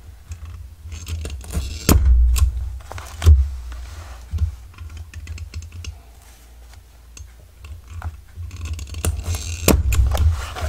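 Scattered clicks, taps and knocks of a craft tool and a soft-cover journal being handled on a desk while stitching holes are made in its spine, with dull thumps against the desk and a few sharper knocks; it goes quieter for a few seconds in the middle.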